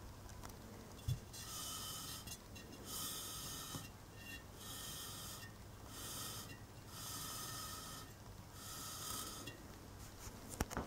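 A person breathing softly close to the microphone, a faint hiss about once a second, over a steady low hum, with a few sharp handling clicks near the end.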